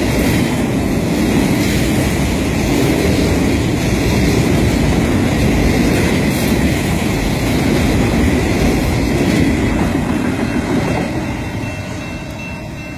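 BNSF autorack freight train rolling past at track speed: a steady, loud rumble of steel wheels on rail from the passing rack cars. It fades away near the end as the last car passes and the train recedes.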